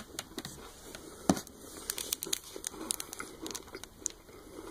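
Crinkly plastic wrappers of fun-size candy bars rustling and crackling as a hand picks through them, an irregular run of sharp crackles with the loudest a little over a second in.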